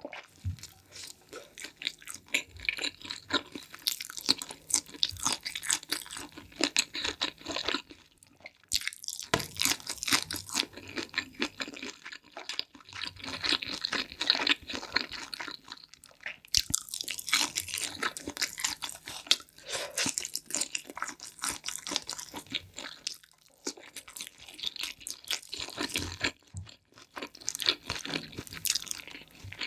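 Close-miked chewing and crunching of pizza, with wet mouth sounds, in runs of crackly bites broken by short pauses.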